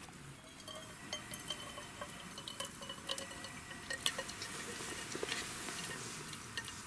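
Just-boiled water poured from a kettle in a thin stream into a drip-bag coffee filter over a metal mug, a faint trickle with scattered small clicks.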